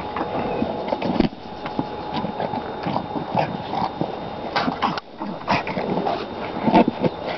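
A small flat-faced dog mouthing and pushing a soft plastic ball across grass: irregular bites, knocks and scuffs, with a brief lull about five seconds in.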